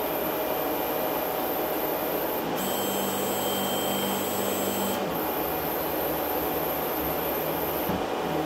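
Elegoo OrangeStorm Giga 3D printer running as its print head travels across the bed to the first leveling point: a steady whir with motor tones that shift about two and a half seconds in and again at about five seconds.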